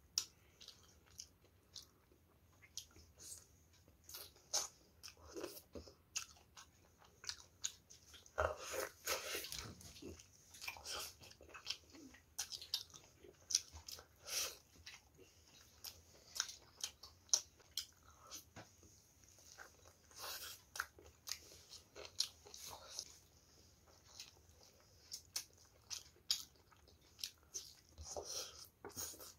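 Mouth sounds of a person eating: biting meat off a chicken drumstick and chewing it with rice, a steady run of short clicks.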